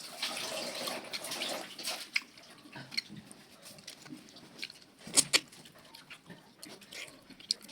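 Running water hissing for the first couple of seconds and fading, then scattered sharp clicks and taps, the loudest a quick pair about five seconds in.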